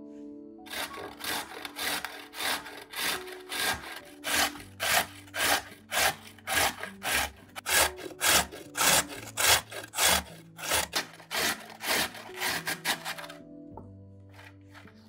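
A raw carrot being grated on a stainless-steel box grater: a rasping scrape on each stroke, about two strokes a second, stopping shortly before the end.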